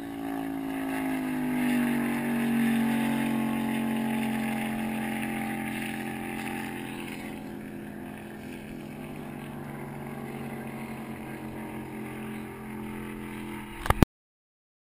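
Racing ski-boat engine going past at speed, loud about two seconds in, its pitch sliding down as it passes and then fading; a fainter boat engine follows. Two sharp clicks near the end, then the sound cuts off suddenly.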